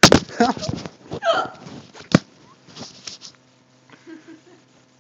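A girl hiccupping loudly. A sharp, very loud hiccup comes at the start and another just after two seconds, with shorter voiced hiccup sounds between them and fainter ones after.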